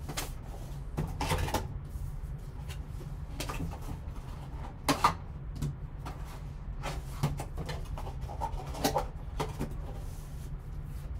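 Cardboard trading-card box being handled and opened: scattered rustles, scrapes and light knocks of the box flaps and packaging, the loudest knock about five seconds in, over a low steady hum.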